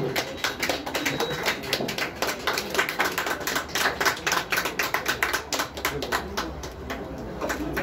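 A small audience clapping, the separate hand claps distinct and irregular, thinning out near the end.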